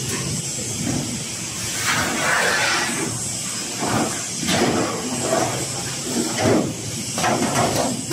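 Large sheets of galvannealed steel being lifted and slid across one another by hand, giving irregular metallic scrapes and rumbles over a steady hiss of factory noise.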